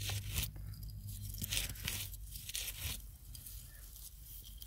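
Gloved hand scraping and digging through gritty dump soil and ash to uncover a buried glass bottle, in several short crunching strokes during the first three seconds, then quieter, with a sharp click near the end.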